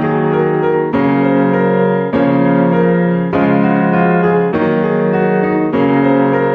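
Background music: a chord played about every second, each held until the next.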